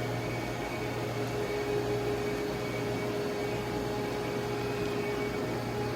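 Steady machine hum from CNC lathe shop machinery, with a steady whine that comes in about a second in and holds.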